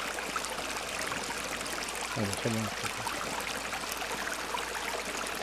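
Steady trickle of running water from a garden pond's cascades between its basins, with a brief murmur of a voice a little past two seconds in.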